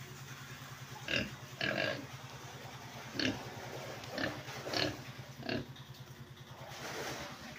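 Pigs giving about six short calls, spaced irregularly, over a steady low mechanical hum.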